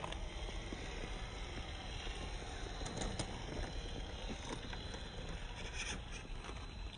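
WPL C24 Toyota Hilux RC crawler driving over dirt and rocks, its tyres and drivetrain grinding and scraping on the ground, with two sharp clicks about three seconds in.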